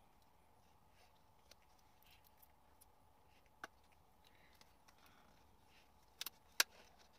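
An eyeshadow palette and its cardboard sleeve being handled, making a few sharp clicks and taps: one about halfway, then three close together near the end, the last the loudest.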